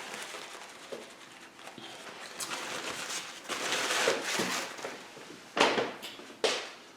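Close-up eating sounds: wet chewing and mouth noises over a mouthful of shrimp and angel hair pasta, with two sharp clicks near the end.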